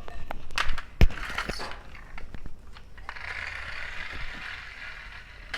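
Toy car handled with a few clicks and a sharp knock about a second in, then running across the floor with a light rasping whirr for about two seconds. The car is moving slowly.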